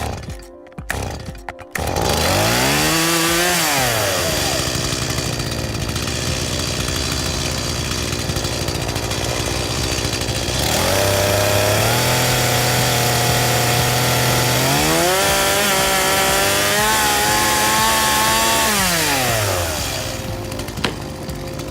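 Chainsaw engine revving up after a few light clicks, then running hard in a long noisy stretch. It settles to a steady lower pitch about halfway through, revs up again with a wavering pitch, and drops back near the end.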